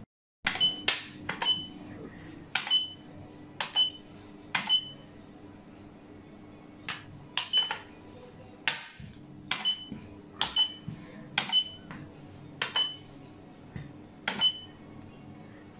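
Round xiangqi pieces clacked down one after another onto the board as it is set up for a new game: sharp clacks, often in quick pairs, about twenty in all, each with a brief high ring.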